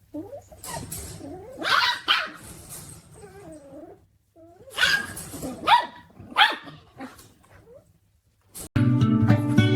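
A dog barking, about five short sharp barks in two bunches, with soft whines in between. Music starts near the end.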